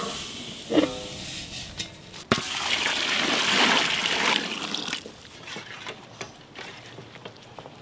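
Water pouring and splashing for about two and a half seconds, starting with a knock a little over two seconds in, followed by a few light clinks.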